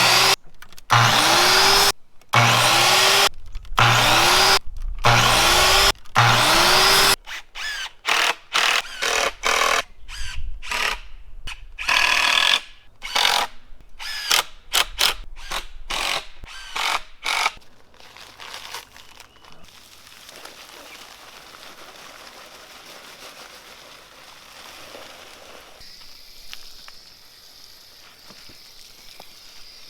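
A handheld power tool run in short repeated bursts, about one a second at first, each rising and falling in pitch, then shorter, quicker bursts. After about eighteen seconds the tool stops and only a faint steady background remains.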